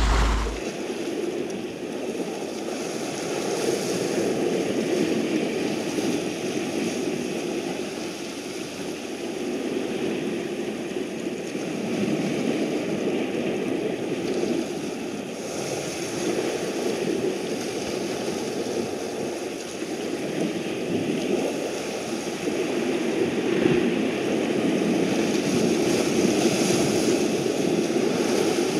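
Sea waves washing and surging against shoreline rocks, a steady rush that swells and eases every few seconds and grows a little louder near the end.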